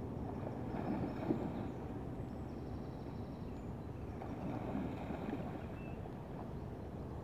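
Steady rush of river water running over rocky rapids.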